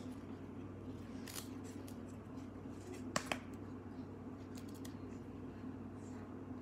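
1992-93 Stadium Club basketball trading cards being slid and flipped one by one in the hands: faint soft rustles, with two sharp clicks close together a little after three seconds in, over a steady low hum.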